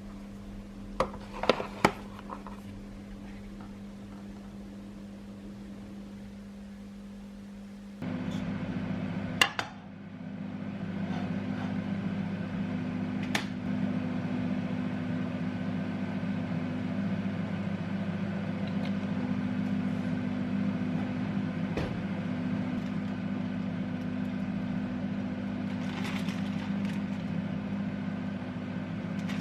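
Steady hum of an electric household appliance motor, which gets louder after a click about eight seconds in, with a few sharp clicks and knocks.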